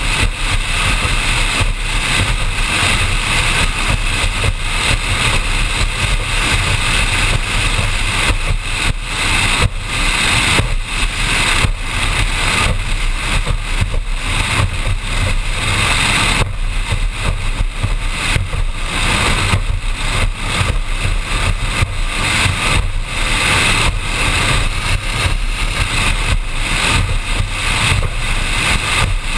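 High-performance offshore powerboat running at speed: its engine noise mixed with rushing wind and water, loud and continuous.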